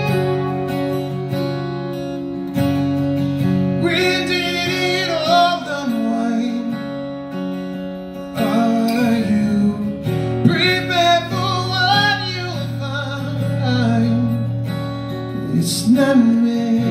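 Acoustic guitar strummed and picked live, with a man's voice singing a phrase about four seconds in and a longer one from about eight and a half seconds.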